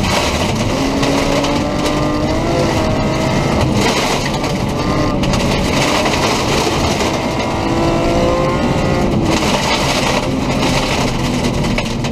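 BMW M3 rally car heard from inside the cabin at full stage speed: the engine's revs rise and fall with gear changes and lifts, over a steady noise of tyres and gravel on a loose-surface road.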